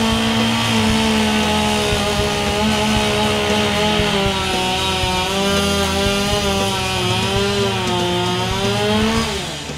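Husqvarna professional chainsaw with AutoTune running loud and steady while cutting through a log, its engine pitch wavering slightly under load. The revs fall away near the end as the cut finishes.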